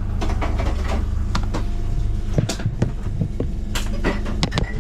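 A steady low mechanical hum, with irregular light clicks and knocks scattered over it.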